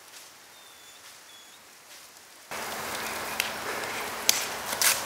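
Outdoor yard ambience: quiet at first with two faint high chirps, then, about halfway through, a louder steady rustling hiss of wind and dry fallen leaves with a few sharp crackles.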